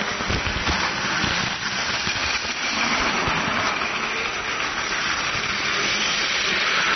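Battery-powered Plarail toy Shinkansen trains running on plastic track: a steady whir of the small motors and gearboxes with the wheels clattering over the track. There are a few low knocks near the start.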